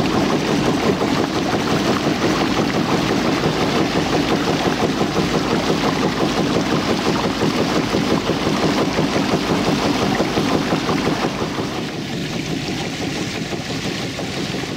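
Small boat's engine running steadily, heard from on board, with a fast, even pulsing; it eases off a little near the end.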